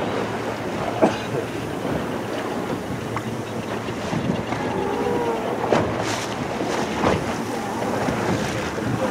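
Steady rush of seawater along a moving boat, with wind buffeting the microphone and a few knocks, the loudest about a second in.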